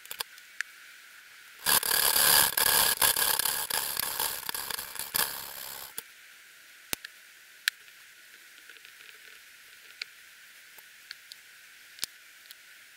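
Several seconds of rough scraping and rubbing from hand work at a motorcycle cylinder head during valve fitting, followed by scattered light clicks and taps of small metal parts.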